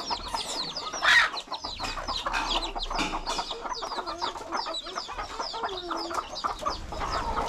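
A small flock of hens and a rooster clucking, with many short, high chirps throughout and a louder call about a second in.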